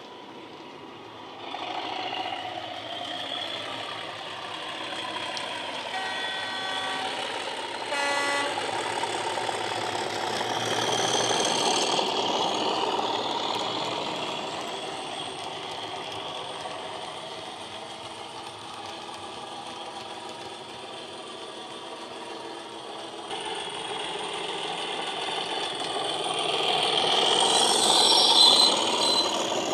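OO gauge Accurascale Class 37 model locomotive's factory-fitted sound decoder playing the English Electric diesel engine sound through the model's speaker as it runs. A two-note horn sounds about six and eight seconds in. The engine sound grows louder near the end as the locomotive passes close.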